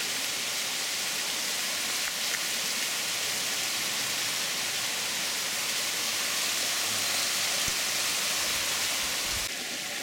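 Small waterfalls spilling over stone ledges and between rocks into a shallow pool: a steady rushing splash of falling water that eases slightly near the end.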